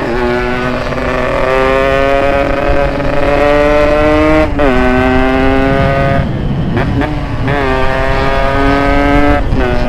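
Yamaha RX-King's ported two-stroke single-cylinder engine accelerating hard. Its pitch climbs, then drops sharply at gear changes about halfway through and several more times near the end.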